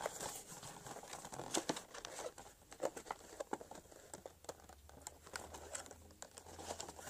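Cardboard and plastic toy-train packaging being handled and crinkled as the engine is worked free of its box: irregular small rustles, crackles and clicks.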